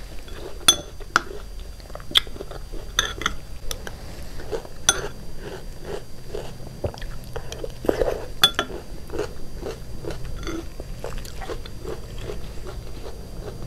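A person chewing and biting mouthfuls of yogurt fruit salad with grapes and muskmelon, with sharp clinks of a metal spoon against a glass bowl, several in the first five seconds and again about eight seconds in.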